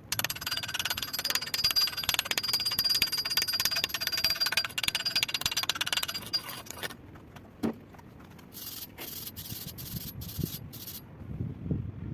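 Stick welding arc crackling and sizzling steadily for about seven seconds, then cutting off when the arc is broken. A little later come about six short hissing strokes.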